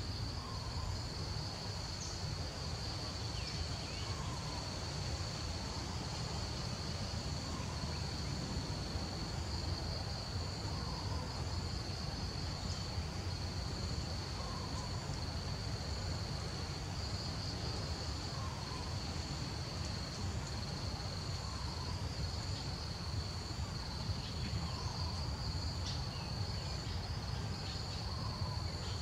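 Insects trilling in a steady high-pitched chorus, with a low rumble underneath and a faint short call repeating every couple of seconds.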